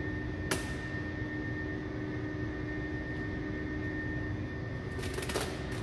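A plastic squeegee scraping and pressing vinyl wrap film onto a car's trunk lid: one sharp stroke about half a second in and a quick run of strokes near the end, over a steady background hum.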